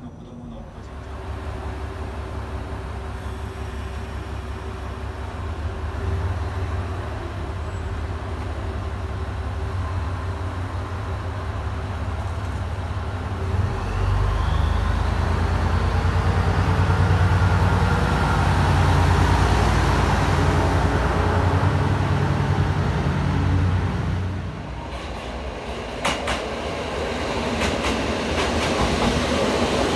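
Trains at station platforms. A railcar's engine runs with a deep drone that grows much louder about halfway through. Near the end a 721 series electric train moves along the platform, with a few sharp clicks of wheels over rail joints.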